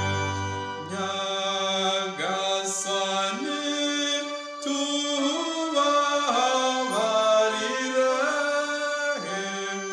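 A man singing a Kinyarwanda song to his own electronic keyboard accompaniment: a solo voice moving from note to note over held keyboard chords.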